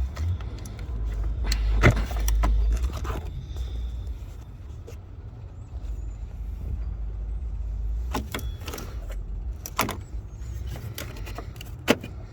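Several sharp plastic clicks and knocks as a truck's fuse box cover is unlatched and handled, over a steady low rumble.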